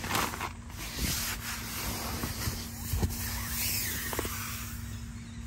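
Rustling and rubbing of a tent's floor and wall fabric as a person shifts around beside an air mattress, with a few soft bumps.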